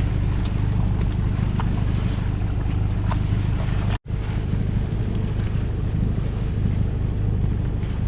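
Sailing yacht's engine running steadily under way while motoring in a calm, a constant low hum with water and wind noise over it.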